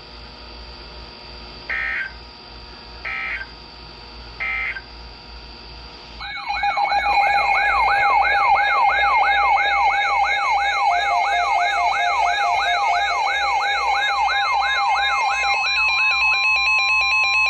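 Emergency Alert System tones from a NOAA weather alert radio. Three short digital data bursts sound about a second and a half apart, marking the end of the previous warning. After a pause, a loud warbling siren alert sweeps up and down about three times a second over steady tones, then gives way to a single steady alert tone near the end, announcing a new severe thunderstorm warning.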